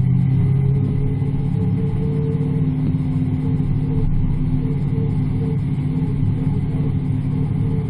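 Muscle car engine running steadily at track cruising speed, a deep continuous rumble picked up by a camera mounted on its hood.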